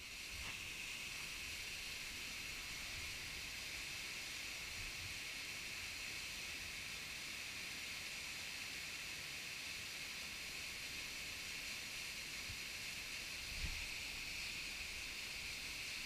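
Steady rushing of a small waterfall plunging into a rock pool in a narrow stone gorge, an even hiss-like wash of water. A single brief low thump comes late on.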